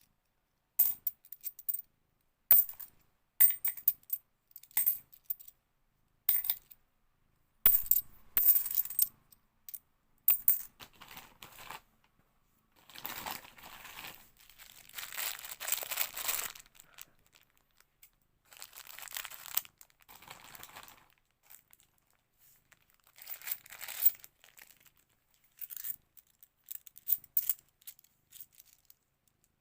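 50p coins clinking against each other as they are handled and sorted: a string of sharp, ringing metallic chinks, with longer stretches of shuffling coin noise in the middle.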